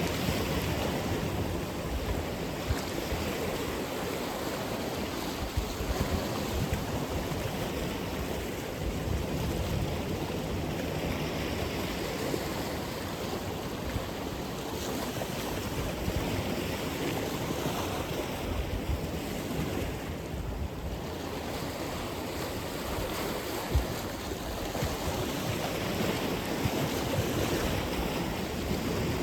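Atlantic Ocean surf: waves breaking and washing in as a steady hiss that swells and eases gently, with one short knock about three-quarters of the way through.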